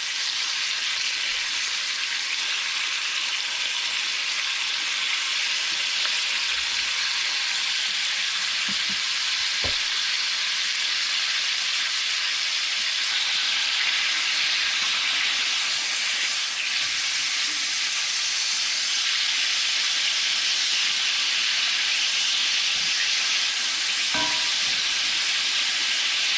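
Thin strips of steak frying in a pan with a little fat, a steady sizzle throughout, with a faint knock or two.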